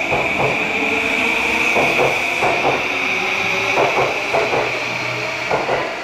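JR East E235 series electric train running through a station platform: groups of wheel clacks over the rail joints as the bogies pass, over a steady high-pitched whine.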